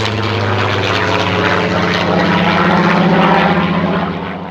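Supermarine Spitfire Mk XIX's Rolls-Royce Griffon V12 engine at power as the fighter flies past overhead. The engine note rises in pitch and grows louder, then fades near the end.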